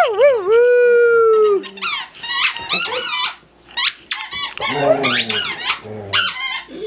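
Dog howling: one long, slightly falling howl, then a quick run of high-pitched whines and squeaky yelps.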